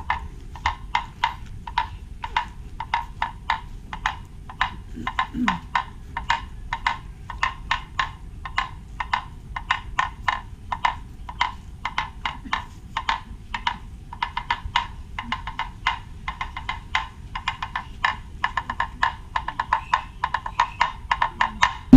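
Hand-held wooden percussion instrument struck in a quick, uneven rhythm: sharp, hollow wooden knocks, about three a second.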